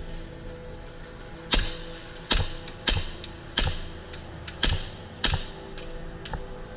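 Airsoft gunfire: about seven sharp cracks at irregular intervals, each with a short ringing tail, as shots go off and BBs strike the plywood walls of the arena.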